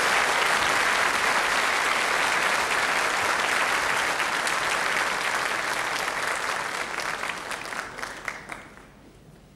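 Audience applauding. About seven seconds in it thins out, dying away to a few scattered claps near the end.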